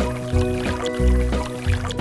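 Background music with a steady beat and sustained synth notes.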